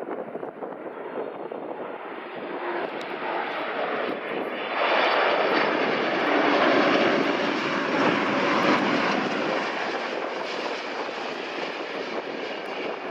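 Jet aircraft engine noise, a broad steady rush that swells sharply about five seconds in, holds at its loudest for a few seconds, then slowly fades.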